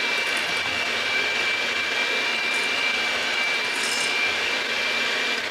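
Electric hand mixer running at a steady speed with a loud whir and a steady high whine, its wire whisk beaters whipping a thin batter in a stainless steel bowl.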